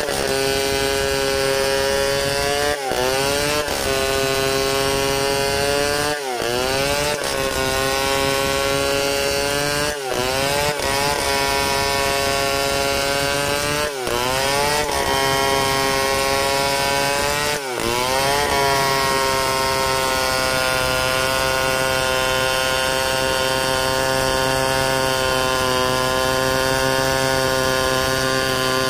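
Large chainsaw running under load, rip-cutting lengthwise down a log freehand to mill it into planks. The engine pitch dips briefly and recovers five times, about every four seconds, then holds steady.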